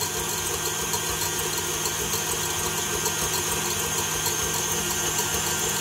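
Electric mixer running steadily at high speed, its beaters whipping egg whites into a meringue as sugar is added.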